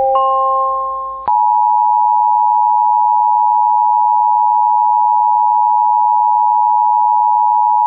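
The last notes of a rising three-note electronic chime fade out. A little over a second in, the Emergency Alert System attention signal begins: a loud, steady two-tone electronic alarm held without a break, announcing an emergency alert broadcast, here a National Weather Service severe thunderstorm warning.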